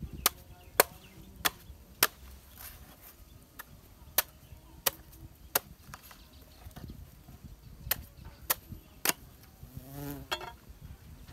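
Machete chopping the husk off a young green coconut: about a dozen sharp chops at uneven intervals, some close together and some a second or more apart.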